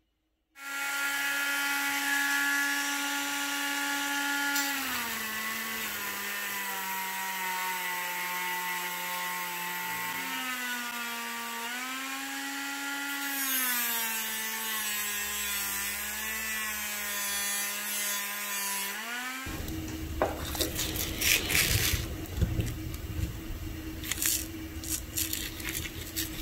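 Handheld rotary tool with a sanding pad, worked against a steel plane blade. Its motor whine drops and rises in pitch a few times. About twenty seconds in the tool goes quiet, giving way to a steady low hum and sharp clicks and knocks.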